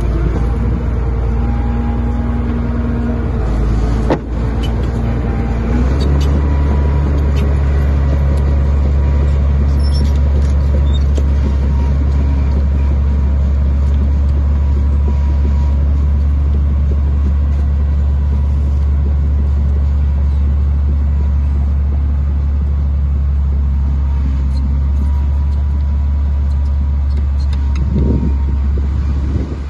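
Heavy diesel engine of earthmoving machinery running loud and steady; about six seconds in its note changes and grows deeper and heavier, then holds. A short knock sounds about four seconds in.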